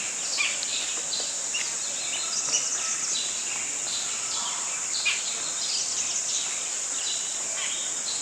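Birds chirping in many short, scattered calls over a steady, high-pitched insect drone.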